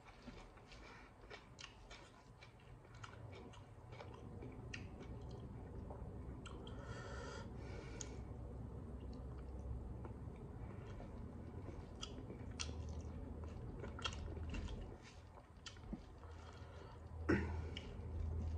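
Close-up eating sounds: chewing with wet mouth clicks and smacks, mixed with fingers squishing and mashing rice and fish on a plate. There is one sharp, louder click near the end.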